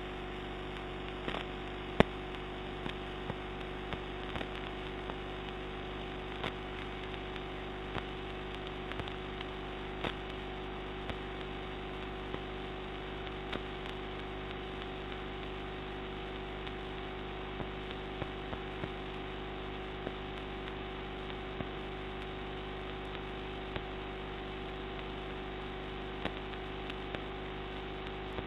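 Room tone: a steady electrical hum and hiss, with scattered faint clicks and one sharper tick about two seconds in.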